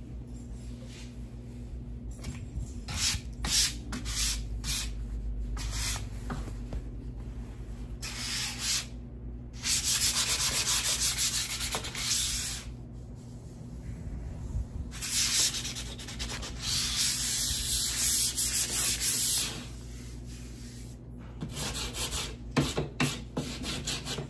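Sandpaper rubbed by hand over the wooden pieces of a dollhouse kit, smoothing rough spots and edges. The strokes come in uneven runs: quick short ones near the start and end, and two longer stretches of steady sanding in the middle. A faint steady hum runs underneath.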